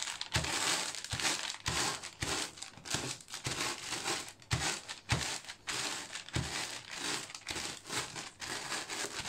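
Potato chips crushed inside a sealed Lay's bag under a wooden rolling pin: crinkling of the plastic bag and crackle of breaking chips, rising and falling with repeated strokes of the pin.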